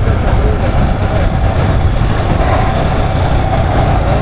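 Motorcycle engine running steadily under way, mixed with wind noise rushing over the microphone.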